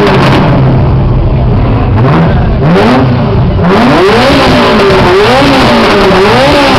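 Ferrari F40's twin-turbo V8 running loud. It idles steadily for about two seconds, then is blipped repeatedly, the revs rising and falling several times in quick succession.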